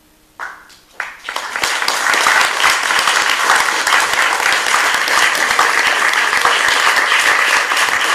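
Audience applauding: a first clap or two about half a second in, then many hands joining within a second into steady, full applause.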